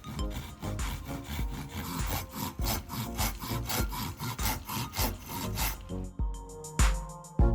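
Saw cutting wood in quick, regular back-and-forth strokes, over background music; the sawing stops about six seconds in.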